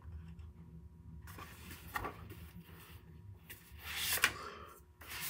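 Paper rustling in a few short bursts, a page of a picture book being turned, over a low steady hum.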